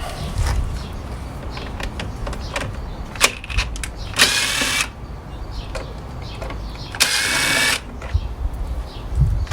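Two short whirring bursts of a small power tool, the first about four seconds in and the second about seven seconds in, amid scattered clicks and knocks over a low rumble.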